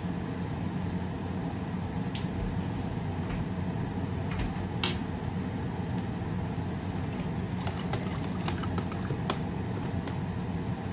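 Pan of bitter melon steaming under a glass lid on a gas stove: a steady low hum and hiss, with a few faint ticks and pops, more of them in the second half.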